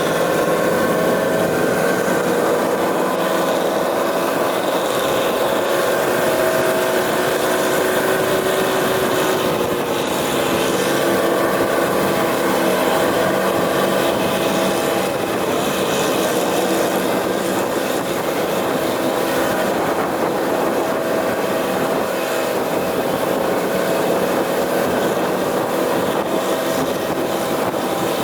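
GAZ-66 truck's V8 engine running steadily as the truck drives, its pitch drifting slightly up and down with the throttle.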